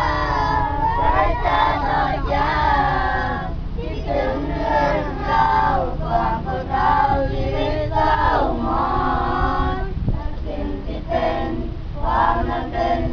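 A group of boys singing together, phrase after phrase with short breaks between them, over a steady low rumble.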